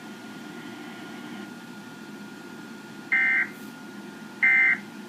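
Emergency Alert System end-of-message data bursts: two short, loud bursts of digital data tones about a second and a half apart, starting about three seconds in, marking the end of the alert. Before them only a low background hiss with a faint steady high tone.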